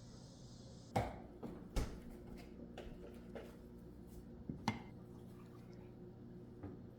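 Kitchenware being handled: a series of light knocks and clinks, the sharpest about a second in and again near five seconds.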